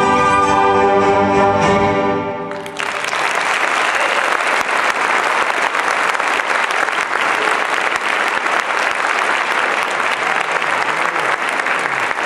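An orchestra of strings and brass holds a closing chord that cuts off about two and a half seconds in, and an audience breaks into applause for the rest of the time.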